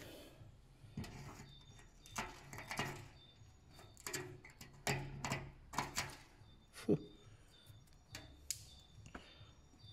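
Scattered clicks, knocks and rustles of objects being handled, with a sharper knock about seven seconds in.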